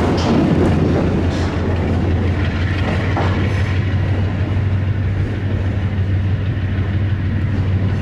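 A freight train rolling away after passing, its wheels clicking over the rails, the sound slowly fading, with a steady low drone underneath.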